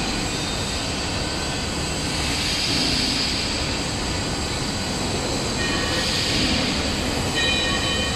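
Shelf roll forming machine running: a steady, loud mechanical noise of drive motors and rollers working steel strip, swelling every few seconds. Thin high squealing tones come in twice in the second half.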